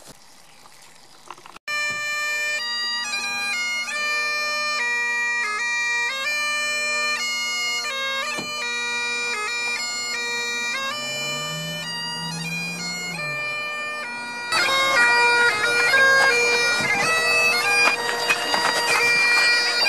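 Great Highland bagpipes playing a tune, the steady drones held under the chanter's melody, starting suddenly about two seconds in. The sound gets louder and noisier a few seconds before the end.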